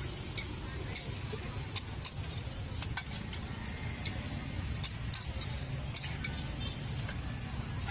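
Metal spatula scraping and clacking irregularly against a wok as a saucy stir-fry is tossed, with a light sizzle, over a steady low rumble.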